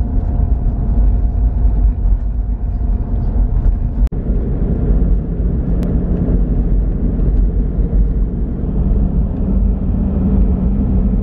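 Steady engine and tyre rumble of a car driving along an open road, heard from inside the cabin. It cuts out for an instant about four seconds in.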